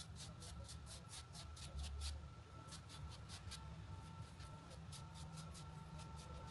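Fingers smearing softened butter across thin rolled-out dough: faint, quick rubbing strokes, about five a second, with a short pause about two seconds in.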